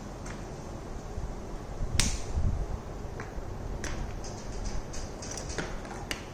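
A sharp click followed by a dull thump about two seconds in, then a few lighter clicks and short scratchy rustles over a steady low room hum: someone handling things close to the microphone.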